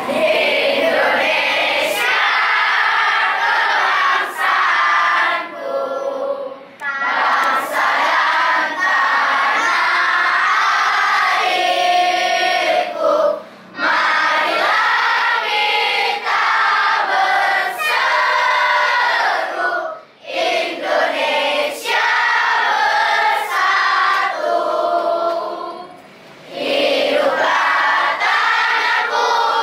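A large group of schoolchildren singing together without accompaniment. The song runs in long phrases broken by short pauses about every six or seven seconds.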